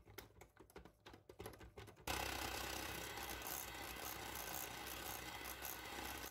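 Electric hand mixer whipping whipped-cream powder into cold milk in a glass bowl. Faint light ticking at first, then about two seconds in the mixer's steady whir starts and holds.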